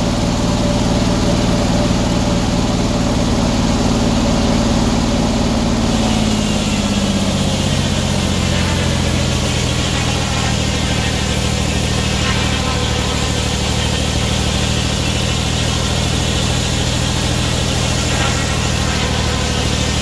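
Circular sawmill's engine running steadily. About six seconds in, its pitch sags and then holds lower as the blade takes the cut under load, and the hiss of the saw rises.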